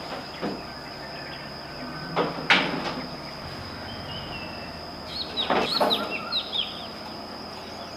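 Outdoor ambience: a steady hiss with a constant thin high whine, a couple of short knocks early on, and a bird chirping several times in quick succession about five to six and a half seconds in.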